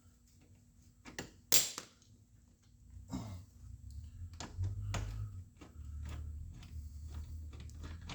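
Scattered clicks and knocks from handling the dash wiring harness and its clips, the sharpest about a second and a half in. From about halfway a low rumble of rubbing and handling joins them.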